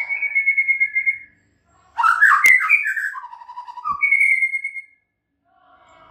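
White-rumped shama singing in short loud phrases: a rapid trill of repeated notes, then after a brief pause a louder, more varied phrase with a sharp click in it, and another rapid trill ending about five seconds in.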